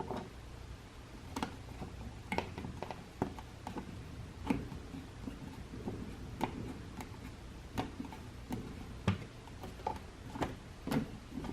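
Irregular light clicks and scrapes of a hand screwdriver turning the mounting screws of a light switch into its wall box.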